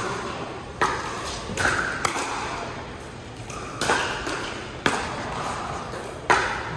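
Pickleball rally: sharp pops of paddles striking the plastic ball, about one every second or so, echoing in a large indoor hall.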